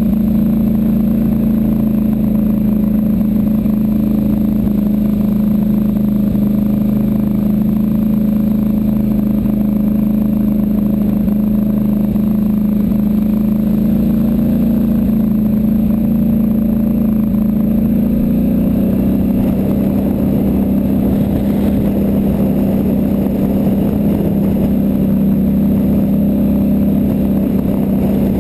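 ATV engine droning steadily while under way, dipping slightly in pitch about two-thirds of the way through.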